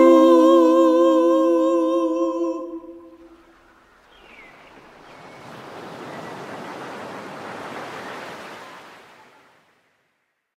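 A final sung note held with vibrato, fading out about three seconds in, followed by a wash of ocean waves that swells and then fades away into silence.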